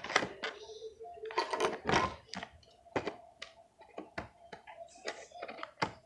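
Irregular clicks and short crinkling rustles of plastic packaging being handled and opened.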